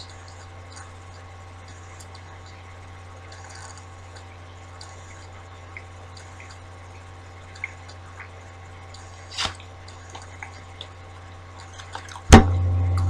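A person quietly chewing a bite of a chocolate bar with cookie bits: small wet mouth clicks over a steady low electrical hum. About a second before the end a loud knock, after which the hum gets much louder.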